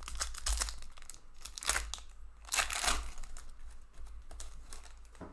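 Foil wrapper of a hockey card pack being torn open and crinkled by hand, in several bursts of rustling, the loudest about two and a half seconds in.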